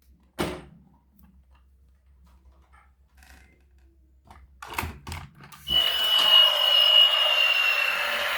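A few clicks and knocks, then a little past halfway a small electric motor starts whirring steadily, with a high whine that slowly sinks in pitch, as from a battery-powered toy vehicle.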